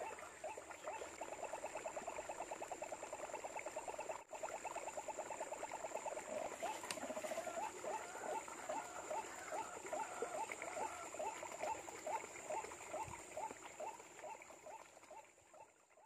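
White-breasted waterhen (ruak-ruak) calling: a long series of short croaking notes, fast at first, then slowing to about two or three a second and fading out near the end.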